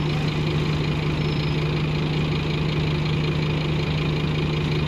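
Scania OmniCity bus's diesel engine idling steadily, heard from inside the passenger saloon.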